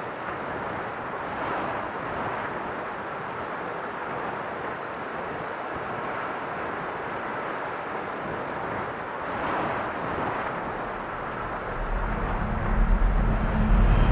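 A steady rushing noise that swells briefly twice, then a loud, deep rumble that builds near the end.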